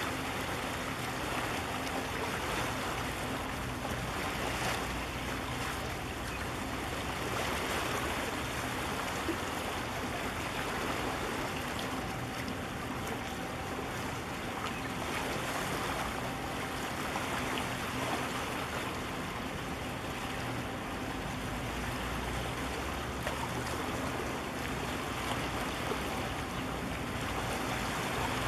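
Steady wash of wind and harbour water, with a faint low steady hum as a large container ship passes.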